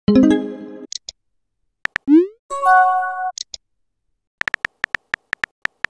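Texting-app sound effects: a short synthetic chime dying away as a message is sent, then a rising whoop about two seconds in followed by a chime of a few steady tones as the next message appears. From about four and a half seconds in, rapid even keyboard tap clicks of a message being typed.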